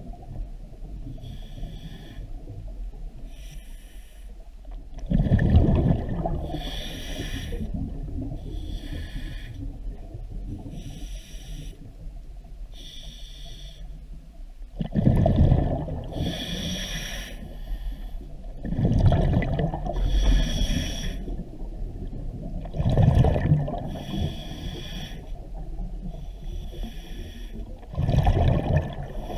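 Scuba diver breathing underwater through a regulator: five loud gushes of exhaled bubbles a few seconds apart, with a faint high-pitched pulsing about once a second in between.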